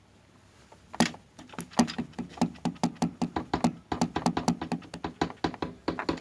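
Washing machine knocking hard and repeatedly as it shakes, several sharp bangs a second, starting about a second in: the drum is off-balance.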